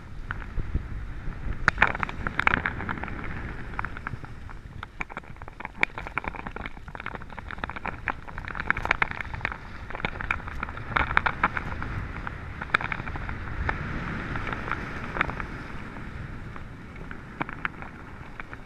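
Skis scraping and carving over packed snow, with many short, sharp, irregular scrapes over a low rumble of wind on the microphone.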